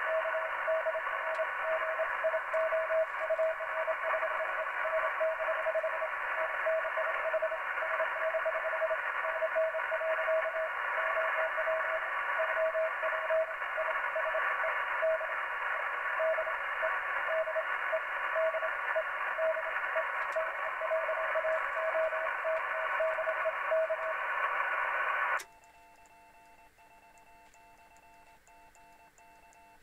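Morse code (CW) tone keyed on and off through heavy static from an HF ham radio transceiver's speaker on the 7 MHz band. Near the end the static and the tone cut off abruptly, leaving only a faint steady whine.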